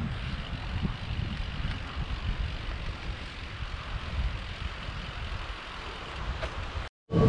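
Low, steady rumble of wind on a bike-mounted camera's microphone, mixed with bicycle tyres rolling on asphalt, and a faint high whine in the first half. It cuts off abruptly near the end.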